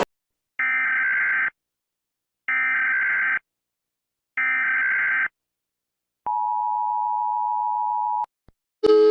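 Electronic alert signal: three identical beeping tones, each just under a second long with a second of silence between, then one long, steady, lower tone of about two seconds. A louder horn-like tone cuts in right at the end.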